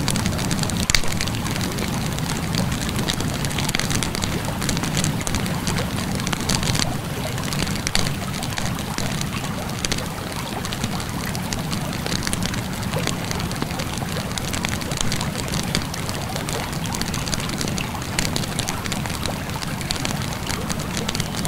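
Wood fire crackling with frequent sharp pops over the steady rush of flowing river water.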